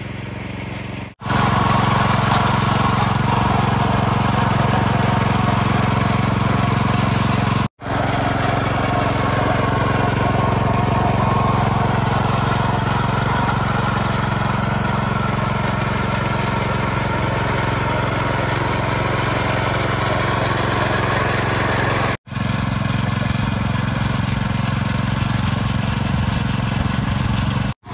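Small engine of a walk-behind power tiller running steadily under load as its rotary tines churn dry, loose soil.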